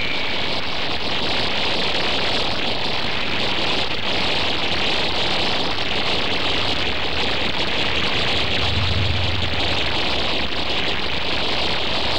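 A steady, loud rushing roar with a hiss. A deep rumble swells for about a second two-thirds of the way through.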